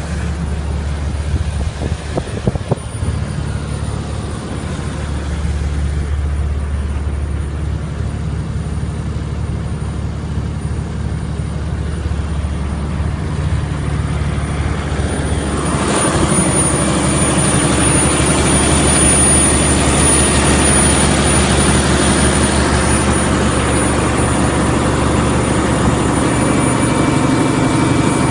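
Scania diesel engine of a 250 kVA supersilent generator set running steadily. About halfway through it steps up and stays louder and brighter.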